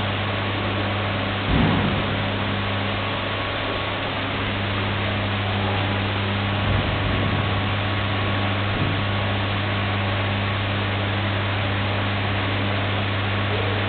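Snack-food production-line machinery running steadily: a constant mechanical hum under an even wash of noise. A brief louder knock comes about one and a half seconds in, and a smaller one about seven seconds in.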